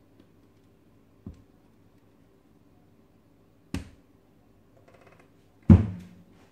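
Three knocks on a kitchen counter, about a second, almost four seconds and nearly six seconds in, with a faint scrape between the last two. The knocks come as a wooden spoon and bowl are handled while lumps of soft dough are dropped onto plastic wrap. The last knock is the loudest and rings briefly.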